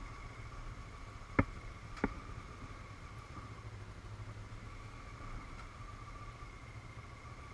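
Honda CBF500 motorcycle engine running steadily at low speed, heard muffled through a helmet-mounted camera. Two sharp clicks come about a second and a half in, half a second apart.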